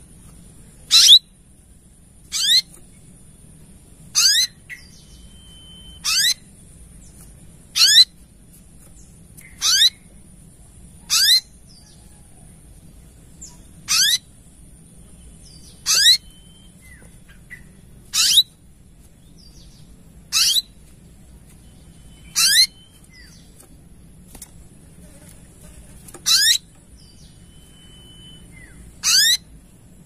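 Olive-backed sunbird calling: a short, sharp sweeping note repeated about every two seconds.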